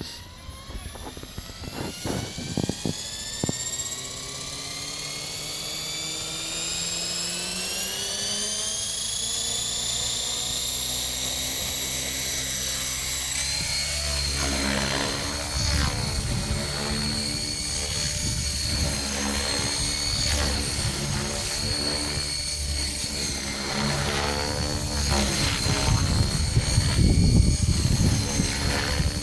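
Gaui X5 radio-controlled helicopter spooling up: the motor and rotor whine rises steadily in pitch for about twelve seconds, then holds. A fluttering rotor rumble joins and grows louder toward the end.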